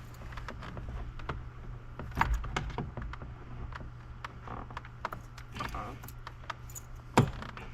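Plastic rod-retaining clips inside a car door being worked loose: scattered clicks and scrapes, with a sharp snap about two seconds in and another near the end. A steady low hum runs underneath.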